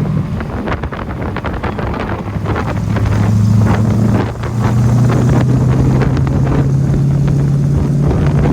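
Small-block Ford V8 of a Factory Five Cobra replica running under way, with wind buffeting the microphone in the open car. The engine note dips briefly about four seconds in, then carries on steadily.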